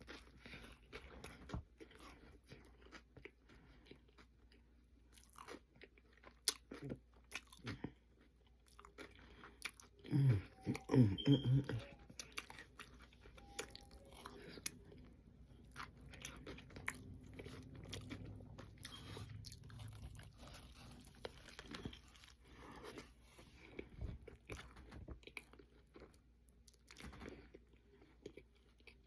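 A person chewing and biting into a burger close to the microphone, with soft crunches and wet mouth clicks. About ten seconds in comes a short low hum from the voice, the loudest sound.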